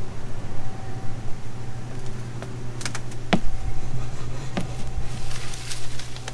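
Combine running in corn, heard from inside the cab as a steady low hum, with a few sharp clicks and ticks from about halfway through.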